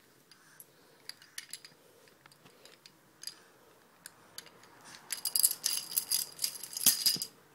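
Scattered light clicks and taps, then a burst of small metallic bells jingling for about two seconds, a little after the middle.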